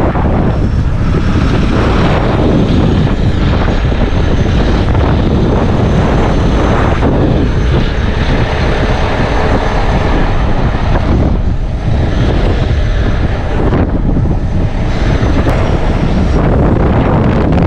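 Strong wind buffeting the microphone: a loud, low rumble that swells and dips in gusts.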